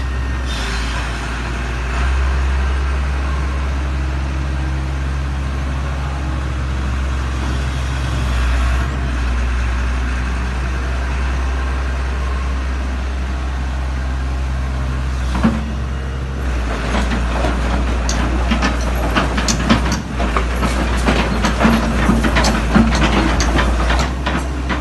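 Sumitomo S280F2 excavator's diesel engine running steadily under a low drone. From about two-thirds of the way in come many sharp knocks and clattering strikes, which ease off near the end.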